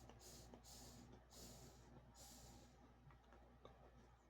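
Near silence: a faint low hum with a few soft breath-like hisses and small clicks.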